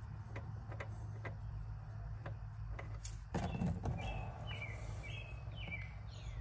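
A songbird calling a quick run of short falling chirps from about halfway through, over a faint steady hum and light ticking. Just before the chirps there is a brief scuffing noise, the loudest moment.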